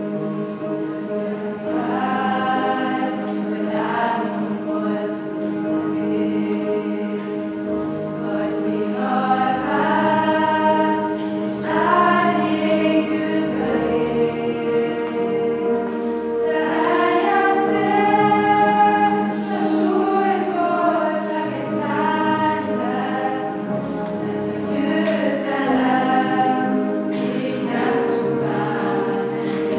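A choir singing a slow song over long held notes of an accompaniment, swelling louder around the middle.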